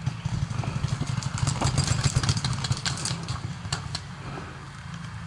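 Paintball markers firing rapid strings of shots: quick sharp cracks, many a second, thickest in the first three seconds, over a steady low hum.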